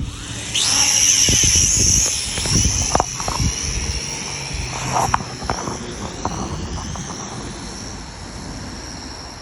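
Small drone's propellers whining as it lifts off about half a second in. The high whine wavers and slowly fades as the drone flies away, over low wind rumble on the microphone.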